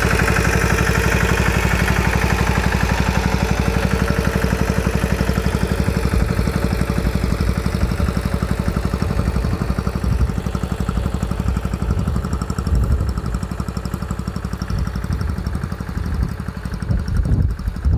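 Engine of a sanedo, a home-built motorcycle-based farm tractor, running steadily as it pulls hoe weeders between cotton rows. It grows duller and more uneven in the second half as it moves away.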